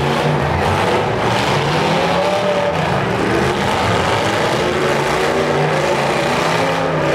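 Several demolition derby car engines revving hard at once, a loud steady din with the engine pitch rising and falling as the cars push against each other.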